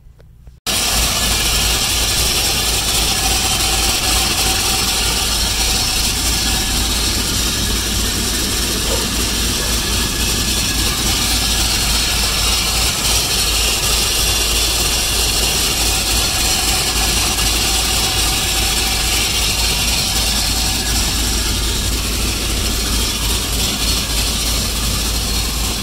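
Turbocharged car engine running steadily, with the tinny, rattly noise that led its owner to find shiny copper-coloured metal in the oil filter. He fears internal damage.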